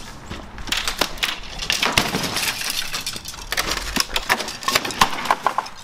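Wooden frame with lattice panels cracking and splintering as it is pushed over and broken apart, a dense run of sharp snaps and clatters of wood.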